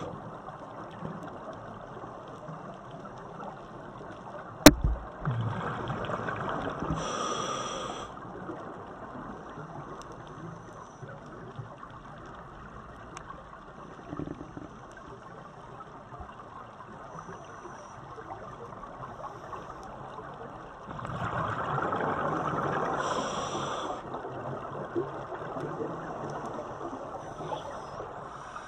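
A scuba diver breathing through a regulator underwater: two long rushes of exhaled bubbles, about five and twenty-one seconds in, each ending in a short high hiss from the regulator, over a faint steady hiss. A single sharp click just before the first exhalation is the loudest sound.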